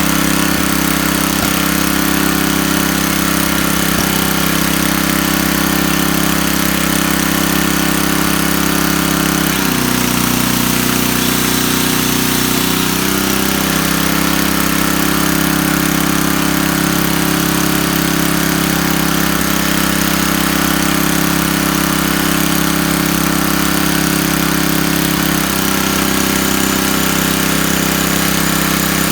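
Tecumseh 8 hp single-cylinder flathead engine of a Coleman Powermate 4000-watt generator running steadily on its new carburetor. About ten seconds in, its pitch sags for about three seconds and then recovers, as a tool is tried on the generator's output. The pitch shifts again near the end.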